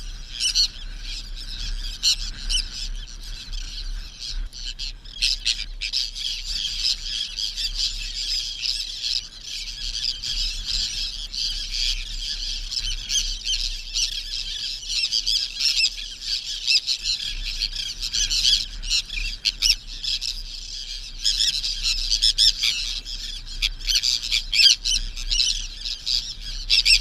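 A flock of birds calling together: a dense, unbroken chorus of short, high, squawking chirps, with a faint low hum underneath.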